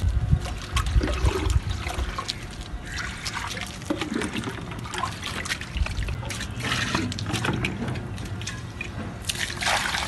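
Water poured from a plastic jug and buckets into shallow clay bowls, trickling and splashing, with small knocks of plastic and clay against each other.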